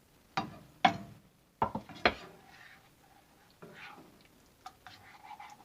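A handful of sharp clinks and knocks of dishes and cutlery, the loudest about two seconds in, then softer clicks near the end with a short ringing tone.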